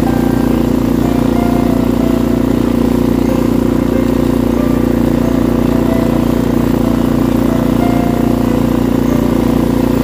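An engine running steadily at an even speed, a continuous drone that holds one pitch.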